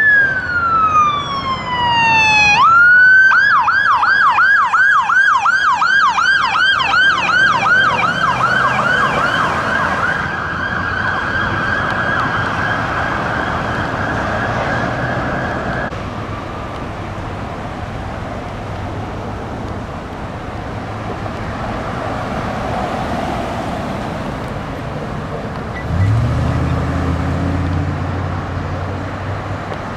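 Sheriff's patrol vehicle's electronic siren: one long falling wail, then a fast yelp of about two to three sweeps a second that fades away about halfway through, leaving traffic noise. Near the end a low vehicle engine comes in loudly.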